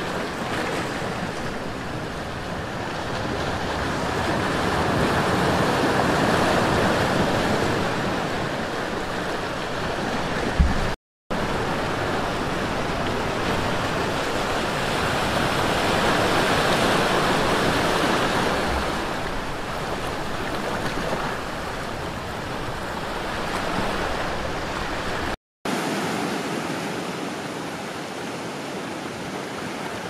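Sea surf washing over a rocky shore, a steady rush that slowly swells and eases, cut off briefly twice.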